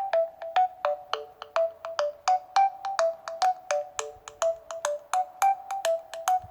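Alcatel SmartFlip phone ringtone playing: a quick melody of short, sharply struck notes, about three to four a second, repeating the same few pitches.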